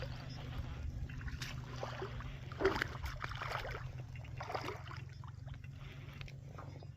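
Fishing boat sounds: a steady low hum with light water noise and a few soft knocks, one brief sharp knock about two and a half seconds in.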